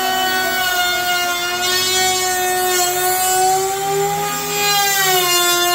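Electric wood router running at full speed and cutting out a window opening in plywood sheathing: a steady high motor whine that sags slightly in pitch about five seconds in as the bit takes load.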